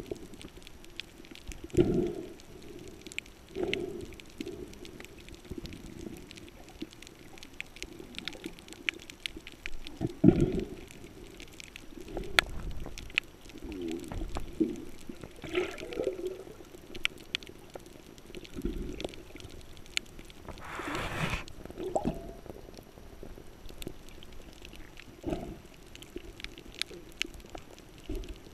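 Scuba diver breathing underwater through a regulator: low bubbling rumbles of exhaled air come every few seconds, with a breathy rush about 21 seconds in. A steady crackle of faint clicks runs underneath.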